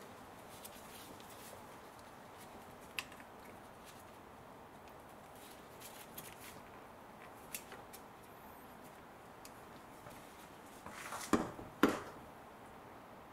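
Light scattered clicks of hand tools and parts being handled, ending with two sharper knocks about half a second apart near the end.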